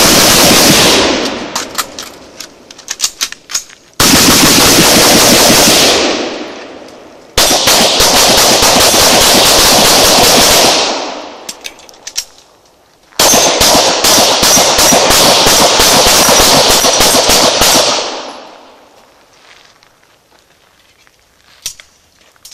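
Rapid gunfire from two shooters firing AR-15 rifles and then pistols, in four long strings of quick shots with short pauses between them. The shots are loud enough to overload the recording. Fainter ticks and clinks sound in the gaps, and the firing stops about 18 seconds in.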